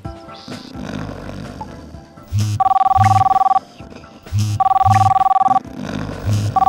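A telephone ringing: an electronic two-note ring in bursts of about a second, twice, with a third ring starting at the very end, over background music.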